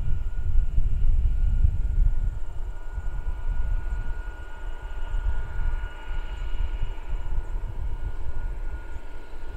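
Boeing 747 freighter's four turbofan engines whining steadily at low thrust as the jet taxis and turns toward the runway, heard from a distance, over a gusty low rumble of wind on the microphone.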